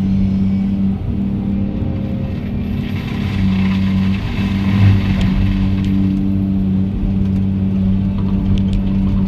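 Kobelco SK210 excavator's diesel engine and hydraulics running steadily, heard from inside the cab, with the Seppi forestry mulcher head spinning in a steady drone. About three seconds in, the head grinds into brush and small trees, adding a hiss of shredding wood, and there is a thump near five seconds.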